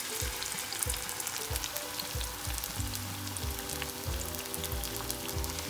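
Batter-coated bitter gourd strips deep-frying in hot oil: a steady sizzle with many small crackles.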